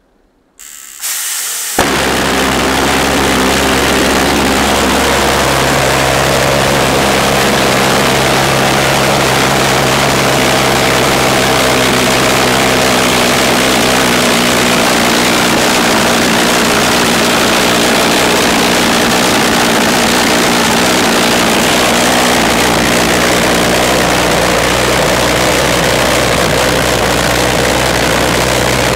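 Maddox Dragon 300-pound-thrust pulsejet, fitted with a new vortex intake, starting up: two short bursts of hiss, then it lights suddenly under two seconds in and runs at full throttle as one loud, steady low drone.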